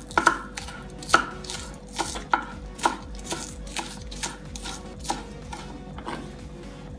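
Kitchen knife chopping scallions on a thick wooden chopping board: irregular sharp knocks of the blade striking the wood, about one or two a second, loudest in the first three seconds and lighter after.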